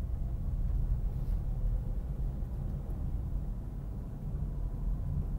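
Steady low rumble of a car driving along a rough, broken road, engine and tyre noise without speech.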